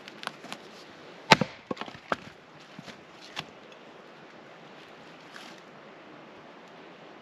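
An axe splitting small pieces of firewood on a stump chopping block. One loud chop comes about a second in, followed by several lighter knocks of wood over the next couple of seconds.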